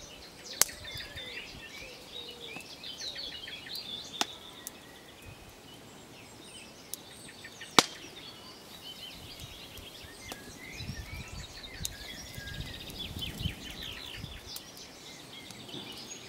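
Birds chirping and singing, with a few sharp pops from the wood fire under the pot, the loudest just before the middle.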